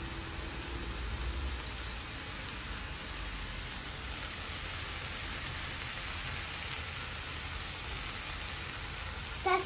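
Chicken pieces and carrots sizzling steadily in hot oil in a frying pan. A brief voice sound near the end.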